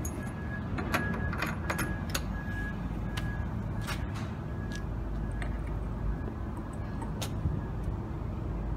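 Scattered light clicks and rattles of cable connectors being handled and plugged in at a satellite dish's control box, over a steady low outdoor rumble.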